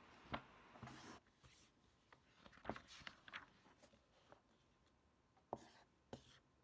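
Faint desk sounds while studying: several sharp taps and clicks of objects set down or handled, with a short rustle about a second in.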